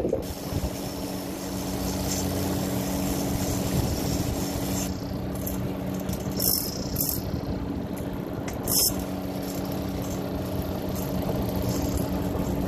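Boat engine running steadily with an even low hum, and a few brief high hisses in the second half.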